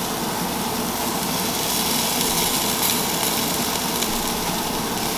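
Bacon-wrapped duck pieces sizzling on a gas grill over small flare-ups of flame: a steady hiss with a few faint crackles.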